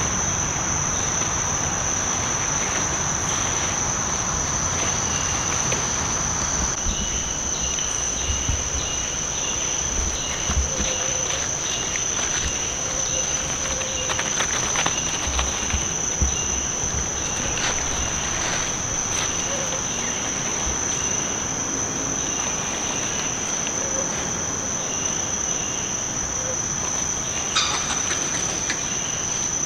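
Steady, unbroken high-pitched drone of forest insects, with a fainter chirping insect joining from about a quarter of the way in. Scattered faint clicks and rustles in dry leaf litter sound through the middle and again near the end.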